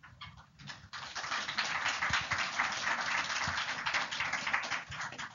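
Audience applauding: a few scattered claps, then steady applause from about a second in that tails off near the end.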